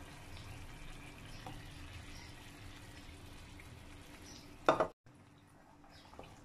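Yogurt and gram-flour (besan) batter pouring steadily from a jug into a kadai of cooking masala. A single brief loud knock comes about four and a half seconds in, and the sound then cuts out suddenly and stays quieter.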